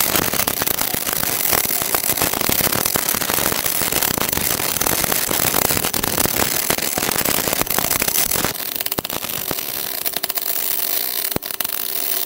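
MIG welding arc crackling steadily as a bead is run on 15 mm thick steel plate. About eight and a half seconds in the sound loses its low rumble and the crackle turns into sharper, more separate pops.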